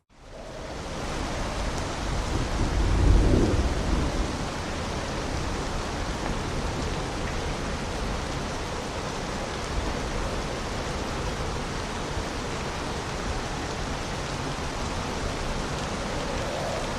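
Heavy storm rain falling steadily. A low rumble swells and fades about three seconds in.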